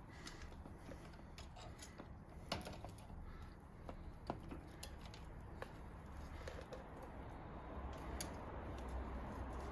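12-speed bicycle chain being fed by hand around the cassette and through the rear derailleur: scattered light metallic clicks and rattles, a handful of sharper ticks among them, over a low steady hum.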